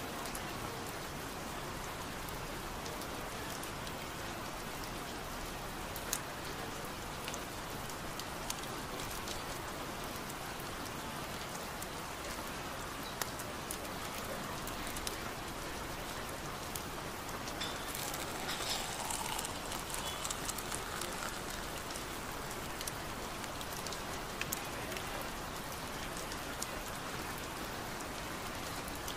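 Steady rain falling, with scattered sharp drop ticks over an even hiss. The ticks come more densely for a few seconds about two-thirds of the way through.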